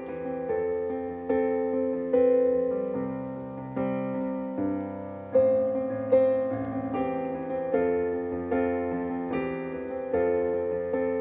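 Piano playing slow held chords, a new chord struck a little more than once a second and left to ring out.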